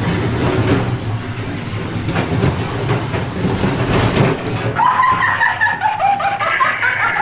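Dark-ride car rumbling and rattling along its track. About five seconds in, a high-pitched voice effect from the haunted house starts up over the ride noise, its pitch wavering and falling.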